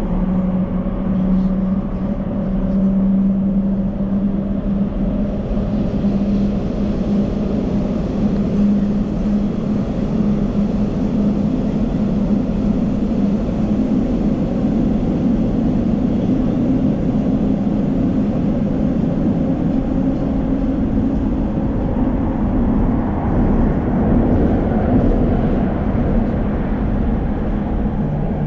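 Elizabeth line Class 345 train running at speed through a tunnel: a steady rumble and rush of wheels on rail, with a low hum that rises a little in pitch a few seconds in.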